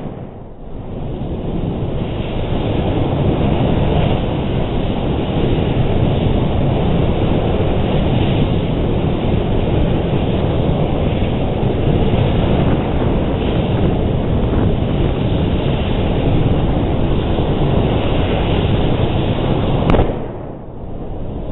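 A steady loud rushing roar from a jet of burning gas venting straight up out of a tank, building up over the first two seconds and then holding. Near the end there is a sharp crack, and the noise dips briefly.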